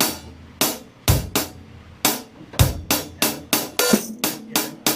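Drum kit played in a simple rock groove: hi-hat strikes with snare and bass drum hits. The playing is uneven at first, with a short break about a second and a half in, then picks up again with quicker hi-hat strokes.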